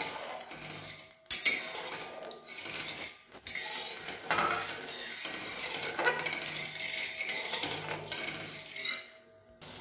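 Steel spatula stirring and scraping sugar water in an aluminium kadai over the hiss of the heating liquid, dissolving the sugar so it does not stick. The sound drops out briefly a few times.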